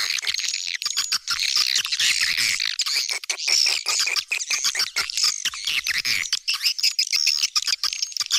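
Swiftlet call-lure recording: a dense, unbroken chorus of edible-nest swiftlet twittering chirps, laced with rapid clicks, played to attract swiftlets to a nesting house.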